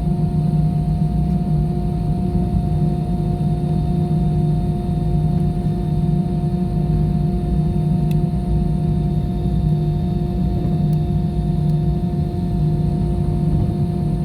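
Airliner engines heard from inside the passenger cabin: a steady, loud low rumble with a constant hum.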